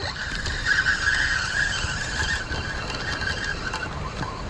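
Spinning reel with a 5.1:1 gear ratio being cranked to retrieve line with a small fish on, its gears giving a steady whir that stops briefly near the end and starts again.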